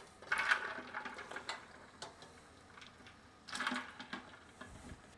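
Soft-boiled eggs put from a slotted nylon spoon into a bowl of ice water: two short bursts of splashing and clinking, about three seconds apart.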